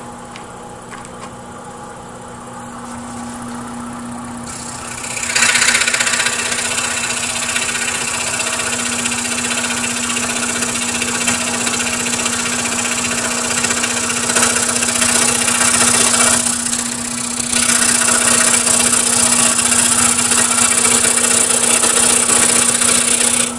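Scroll saw running with a steady motor hum. About five seconds in, the reciprocating blade starts cutting through a stack of several glued-up layers of wood, a loud, even rasping that eases briefly about two-thirds of the way through and then resumes.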